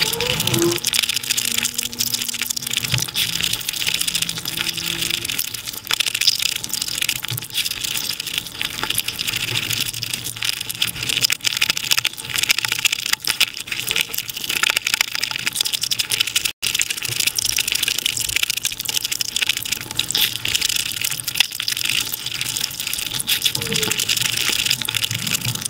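Mukbang eating sounds sped up to five times speed: the chewing, smacking and crunching of someone eating chicken biryani and chicken by hand, run together into a dense, crackly, hissing stream. There is one split-second dropout a little past the middle.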